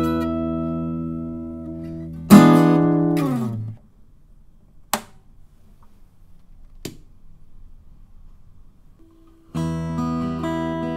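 Morris F52 acoustic guitar (solid spruce top, Brazilian rosewood back and sides) played: a chord rings and fades, a loud chord is struck about two seconds in and damped a second and a half later. A few seconds of quiet follow with two sharp clicks, and chords start again near the end.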